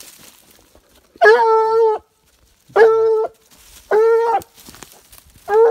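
Young Gascon-cross hound baying four times, long steady-pitched bays with a short gap between them, the first the longest. The dog is giving tongue while working a scent with its nose to the ground.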